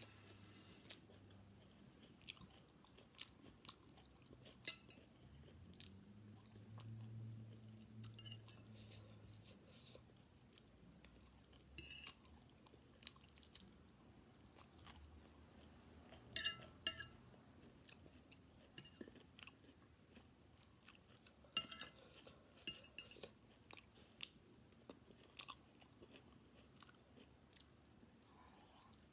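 Faint chewing of stir-fried noodles and vegetables. A metal fork clinks and scrapes against a ceramic plate now and then, loudest about sixteen and twenty-two seconds in. A low hum lasts a few seconds about six seconds in.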